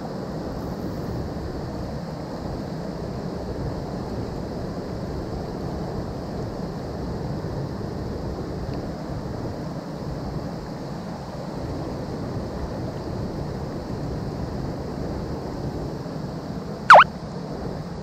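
Steady rush of a swollen mountain stream running high. About a second before the end, one brief, very loud sharp sound cuts in over the water.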